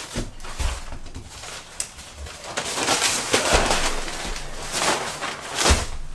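Old newspaper underlay being pulled up off a floor and crumpled, with crackling paper rustle that builds up from about halfway through. A few dull thumps come from feet or hands on the boards.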